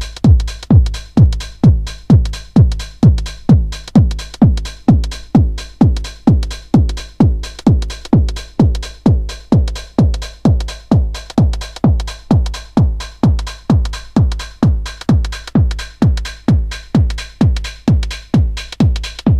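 Electronic dance track: a drum-machine kick drum beats steadily about twice a second, each thud dropping in pitch, with faint hi-hat ticks above.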